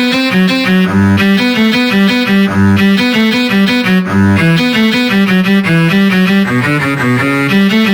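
Polyphonic Samsung SGH-D225 mobile phone ringtone playing back: a quick melody of short, evenly spaced notes over a low bass line.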